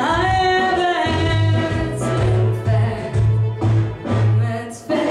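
A woman singing a song from a musical over an accompaniment with a low bass note pulsing in an even beat. Her voice slides between held notes.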